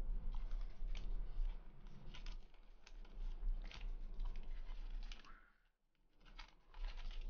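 Trading cards handled by hand: soft clicks and rustles as the cards are shuffled, flipped and tapped against each other and into piles, with a brief lull a little past halfway.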